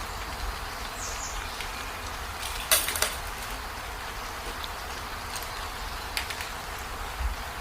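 A few short, sharp clicks or taps over a steady hiss; the loudest is a double click about three seconds in, with fainter ones later.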